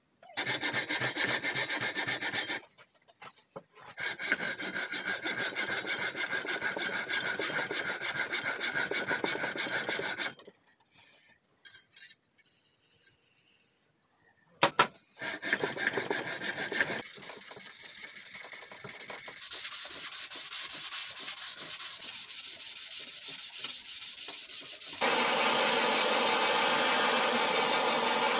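Hand saw cutting through a wooden ash axe handle in quick, even strokes, in several bouts with short pauses. Near the end it gives way to the steady hiss of a propane torch.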